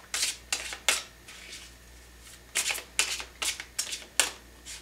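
A deck of tarot cards being shuffled by hand: quick papery slaps and riffles in two bursts, one in the first second and another from about two and a half to four seconds in.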